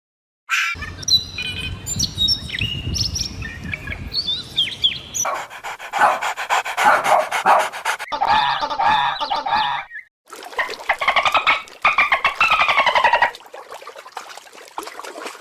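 A run of farm animal calls. First come many short, high bird chirps over a low rumble, then dense, rapidly pulsing calls. After a brief break there are longer calls that slide down in pitch.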